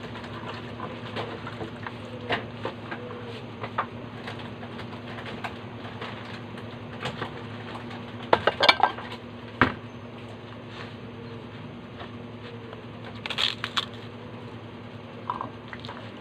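Kitchen knife cutting pechay (bok choy) stalks on a cutting board: scattered taps and knocks, with a cluster of louder strikes about halfway through, over a steady low hum.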